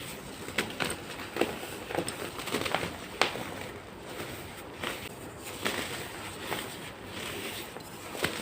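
A hardened disc of baking soda being crushed and crumbled, giving irregular sharp crunches and cracks about once or twice a second over a faint gritty hiss.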